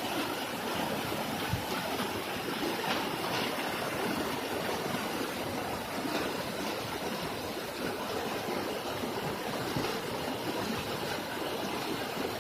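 Steady rushing of water pouring over a waterfall and rapids.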